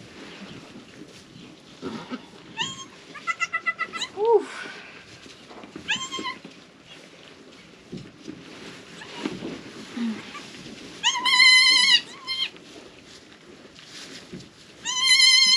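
Newborn goat kids bleating: high, wavering cries, a few short ones in the first half, then a louder, longer one about eleven seconds in and another near the end.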